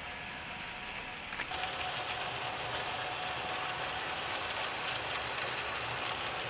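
Bachmann OO gauge model diesel shunters hauling wagons round the track: a steady running noise of wheels and small electric motors, with a faint even whine. It gets louder about a second and a half in, as the trains pass close by.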